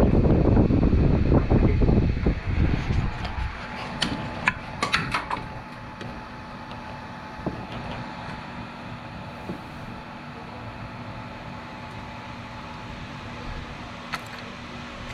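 Electric fan running with a steady hum; a loud low rumble in the first few seconds drops away, leaving the quieter hum. A few light clicks and taps come about four to five seconds in and again near the end.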